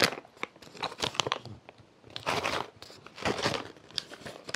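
Plastic freeze-dried meal pouch crinkling and rustling as it is pulled open and handled, in several short irregular bursts.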